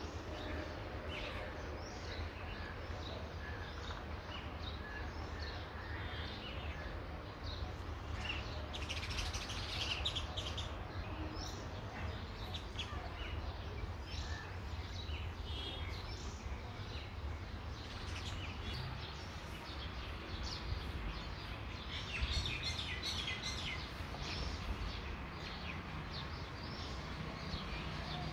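Many small birds chirping, busiest about nine seconds in and again around twenty-two seconds in, over a steady low rumble.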